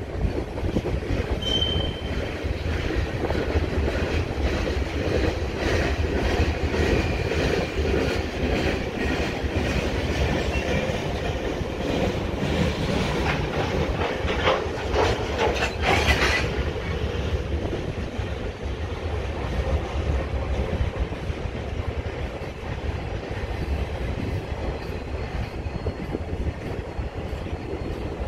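Freight train cars rolling past: a steady rumble with wheels clacking over rail joints. There is a brief high-pitched wheel squeal about a second and a half in, and a run of sharp clacks and knocks about halfway through.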